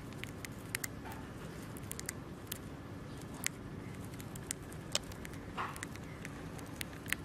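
Dwarf hamster nibbling a piece of food: quick, irregular, tiny crunching clicks over a low steady hiss.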